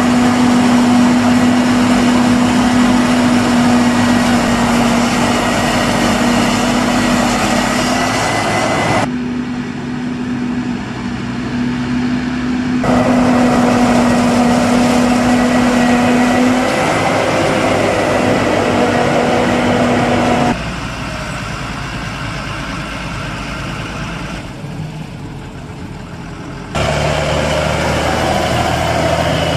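New Holland FX40 forage harvester running under load while chopping standing maize: engine and cutterhead make a steady, loud drone with a held tone, and a tractor engine runs alongside. Near the end comes a deeper engine sound from a Fendt tractor pulling a loaded forage wagon.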